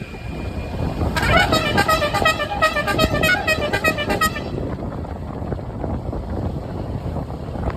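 Basuri telolet musical horn on a tour bus playing a quick, fast-stepping melody for about three seconds, starting about a second in, over a low rumble of the passing bus.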